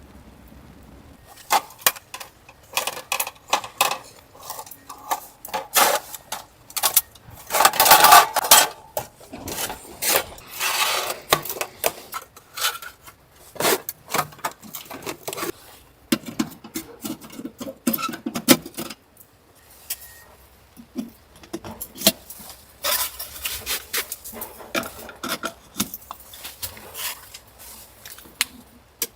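Irregular clinks, knocks and clatter of hard objects being handled, densest about eight seconds in.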